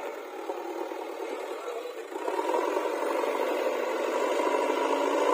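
An engine running steadily with some rattle, growing louder about two seconds in.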